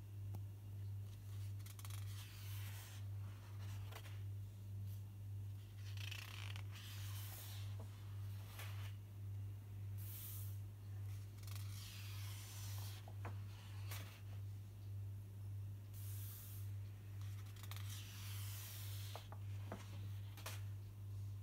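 Large sketchbook pages being turned and smoothed down, paper rustling in short bursts every few seconds with a few light taps. A steady low hum runs underneath throughout and is the loudest sound.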